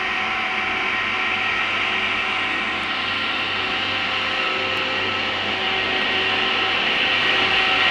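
Railway stoneblower track-maintenance machine running on its diesel engine as it moves slowly past: a steady hum with several held tones and a hiss, growing a little louder near the end.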